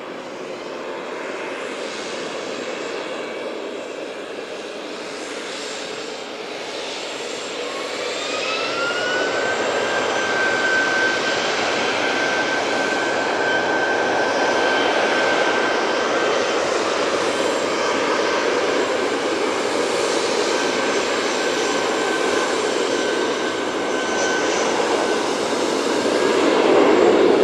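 Embraer KC-390's turbofan engines running on the runway: about a third of the way in, a whine rises and then holds at one pitch while the engine noise grows louder. The noise swells again near the end.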